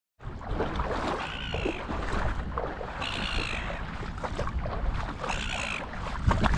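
A bird calls three times, each call about half a second long and roughly two seconds apart, over steady wind and water noise.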